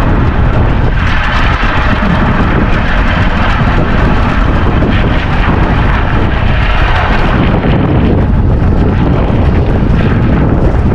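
Strong wind buffeting the microphone on an open boat at sea: a loud, steady rumble with no letup.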